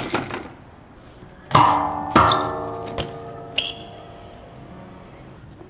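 A chord on a plucked string instrument, struck and left to ring out, struck again about half a second later, with a couple of light clicks as it fades.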